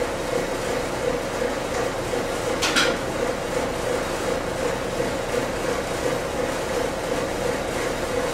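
A steady mechanical hum with a constant mid-pitched tone, and a brief hiss about two and a half seconds in.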